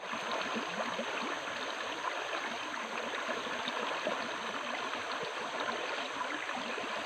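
River water flowing steadily over stones, a continuous babbling rush.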